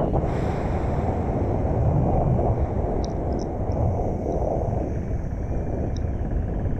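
Motorcycle riding at highway speed: a steady engine rumble under heavy wind rush on the microphone.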